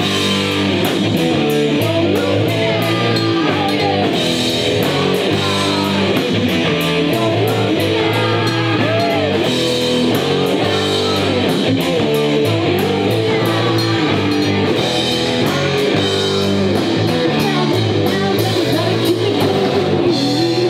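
Live rock band playing loud: electric guitar through a Marshall amp, bass guitar and a drum kit keeping a fast steady beat with cymbals, a woman singing over it.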